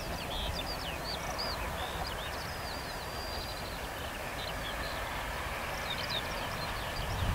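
Several birds singing in quick chirps and whistled glides, over a steady low rumble.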